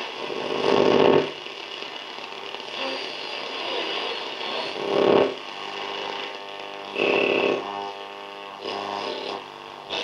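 1945 Westinghouse H-125 Little Jewel tube radio being tuned across the AM band: static and hiss, with short snatches of stations coming in loudly about a second in, around five seconds and around seven seconds, then sliding away as the dial turns.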